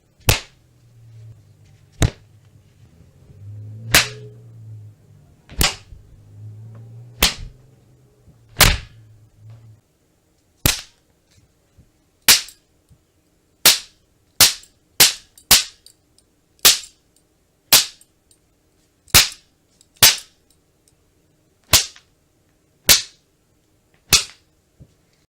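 Whip-crack sound effect: about twenty sharp, single cracks at uneven intervals, coming closer together in the second half. A low hum runs under the first several cracks and then stops.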